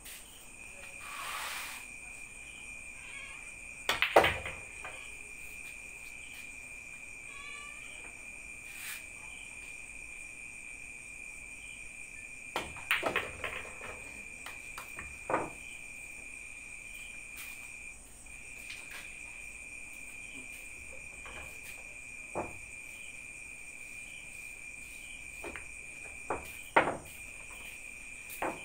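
Pool balls clicking on a pool table: scattered sharp cue-ball strikes and ball-on-ball knocks. The loudest comes about four seconds in, a quick cluster near the middle and a couple more near the end. Under them runs the steady high chirring of crickets.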